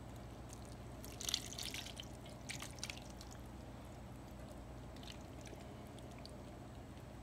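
Faint dripping and spattering of sauce from the pot onto the pan of seafood boil skewers, in two short clusters about a second and two and a half seconds in, with a few lighter drips later, over a low steady hum.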